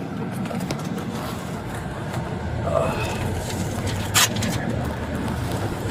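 Steady road and engine noise heard from inside a moving patrol car, with one sharp click about four seconds in.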